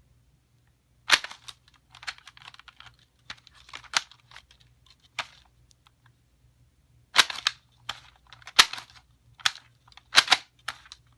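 Handheld price-labelling gun being squeezed and released repeatedly: about a dozen sharp plastic-and-metal clicks with light rattling between them, in two irregular clusters with a short pause in the middle.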